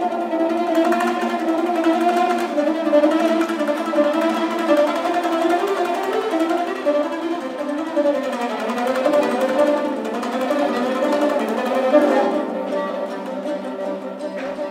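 Kazakh folk ensemble playing a continuous tune: a plucked dombra and a bowed kobyz lead, with an end-blown flute and a table zither in the mix.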